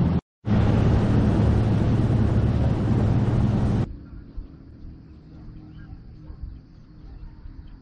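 Bass boat's outboard motor running at speed, with wind and water rushing past. The sound cuts off suddenly about four seconds in, leaving quiet open-water ambience with a faint steady hum.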